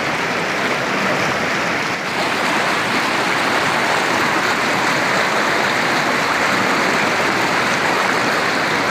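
Whitewater rapids of a rocky river rushing loudly and steadily close to the microphone.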